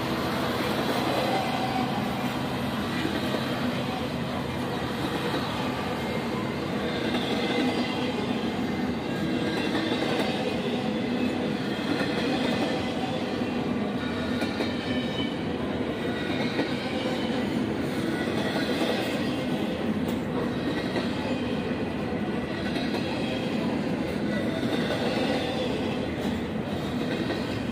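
Double-stack intermodal freight train rolling past: a steady noise of steel wheels on rail, swelling a little every couple of seconds as the wheel sets go by.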